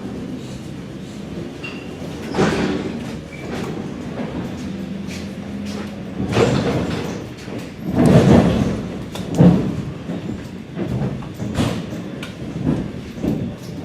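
ED4M electric train on the move: a low steady hum for the first five seconds or so, then a run of irregular heavy knocks and rattles from the train, the loudest about eight and nine and a half seconds in.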